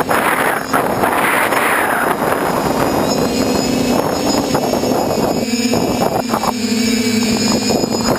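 TBS Discovery quadcopter's four brushless motors and propellers humming steadily in flight, heard from the on-board GoPro, with wind rushing over the microphone.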